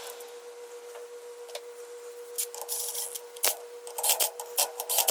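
Rubbing and scraping strokes with scattered sharp clicks, from hand work on parts at a bench; the strokes come in quick repeated bursts over the last second or so. A faint steady hum runs beneath.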